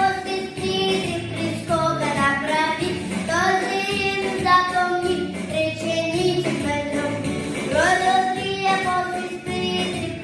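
A young girl, about five years old, singing a song over musical accompaniment, phrase after phrase with held notes.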